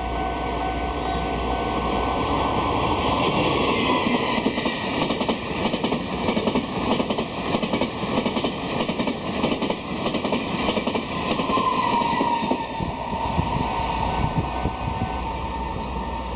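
PPE1000 push-pull Tze-Chiang express train passing over a level crossing, its wheels clattering over rail joints in rapid clicks for about ten seconds before easing off.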